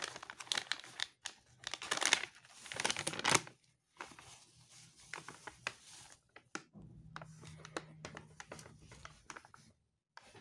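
A plastic packet crinkling as a cleaning wipe is pulled out, loudest in the first few seconds, followed by quieter scratchy rubbing as the wipe is worked along a stethoscope's rubber tubing, with a faint low hum underneath in the second half.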